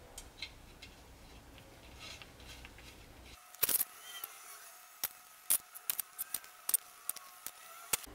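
Quiet room tone, then from about three and a half seconds in a string of sharp, irregular metal clicks, about two a second: nuts being run down onto the ARP main studs of a Mazdaspeed engine block's main-bearing girdle.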